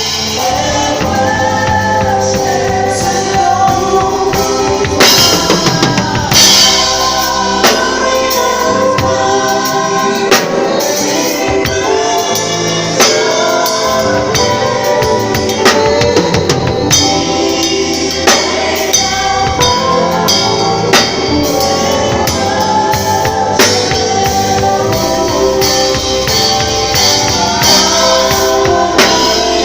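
Music with singing over a drum kit, with snare and bass drum hits throughout.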